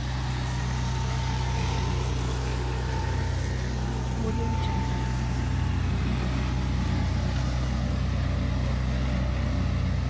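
Petrol lawn mower engine running steadily at working speed, a continuous low drone with no change in pace.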